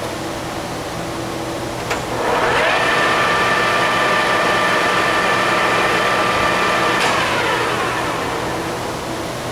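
Clausing 17-inch engine lathe's spindle and gear train engaged with a click, whining up to speed, running steadily for about four seconds, then clutched out with another click and winding down. The running whine is from a gear train that is in good shape.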